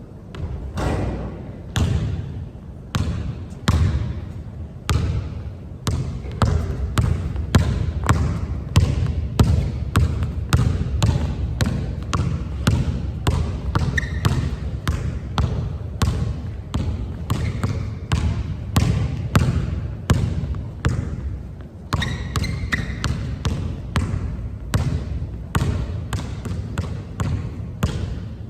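A basketball being dribbled hard and fast on a court, a steady run of sharp bounces several a second with short gaps, as in a point-guard speed drill switching hands and driving to the basket.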